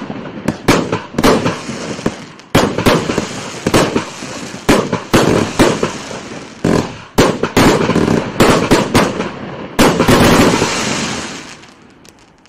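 Compact multi-shot firework cake of 379 shots in 20, 25 and 30 mm tubes, firing rapid volleys of bangs with crackling between them. The shots die away about a second before the end as the cake finishes firing.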